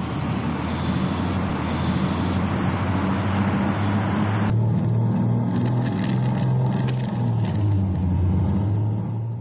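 A go-kart engine running as the kart drives around the track, its tone rising and falling a little with the throttle. About halfway through the sound turns duller, with less hiss.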